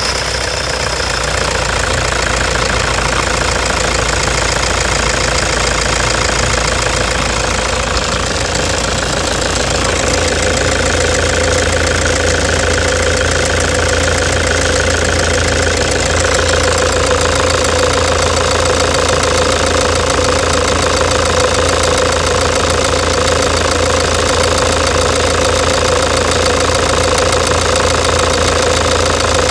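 2009 Toyota Hilux diesel engine running just after a start, with a loud, irregular knock and misfire. The knock comes from a stuck fuel injector on the fourth cylinder, heard close to that cylinder.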